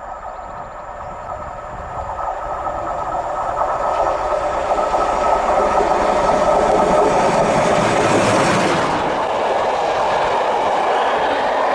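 Steam-hauled passenger train approaching, its running noise growing steadily louder over several seconds. About nine seconds in, the sound changes abruptly to the coaches rolling past, wheels running on the rails.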